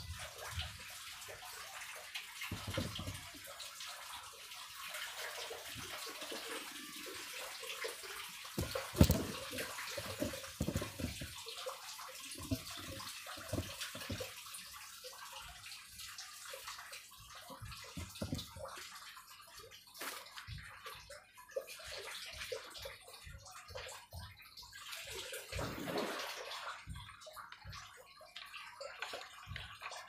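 Water running and splashing into a tub, a steady hiss that thins out past the halfway mark, with scattered knocks of handling, the loudest about nine seconds in.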